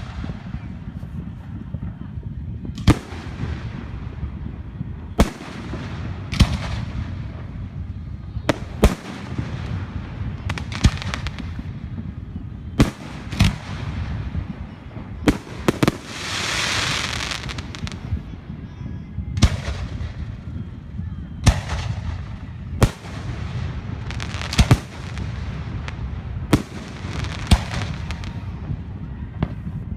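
Fireworks going off: sharp bangs about every one to two seconds, each trailing off in an echo. About sixteen seconds in, a hissing burst lasts about two seconds.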